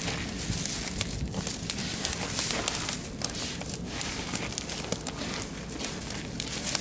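Oak and beech wood fire crackling, with many small irregular pops over a steady hiss.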